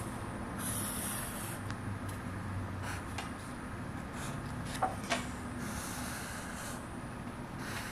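Felt-tip marker drawing lines on a pad of graph paper: the tip rubs across the paper in several separate strokes, with two light taps about five seconds in.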